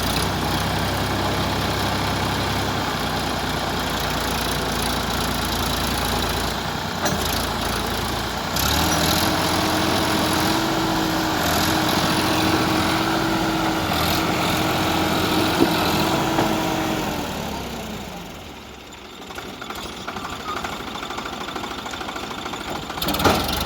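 Heavy diesel engine of working earthmoving machinery running steadily. About nine seconds in a steady whine joins it and holds for about eight seconds, then the sound drops to a lower level, with a short sharp knock near the end.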